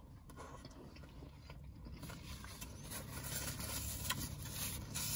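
Quiet chewing with the mouth closed, then about two seconds in a soft paper-napkin rustle as the napkin is rubbed across the mouth and nose, with a few small clicks.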